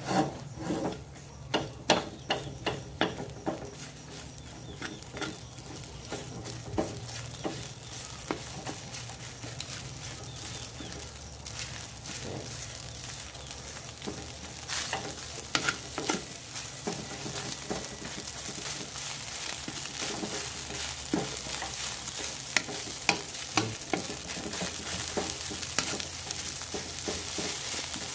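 Garlic fried rice with egg sizzling in a metal wok on high heat while a wooden spatula stirs and tosses it, knocking and scraping against the pan. A steady frying hiss that grows a little louder, with irregular spatula knocks, most frequent in the first few seconds.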